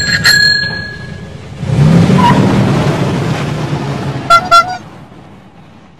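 Cartoon van sound effects: a ringing tone that fades out, then a vehicle engine running from about two seconds in, and a quick double horn toot, beep-beep, a little after four seconds.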